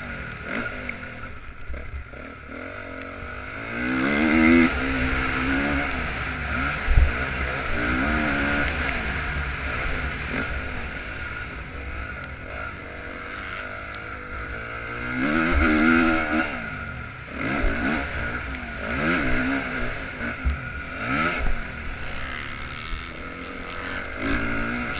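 2015 Honda CRF450R's single-cylinder four-stroke engine revving up and dropping off again and again as the bike is ridden hard around a dirt motocross track, with wind on a helmet-mounted microphone. Occasional sharp thumps are heard, the loudest about seven seconds in.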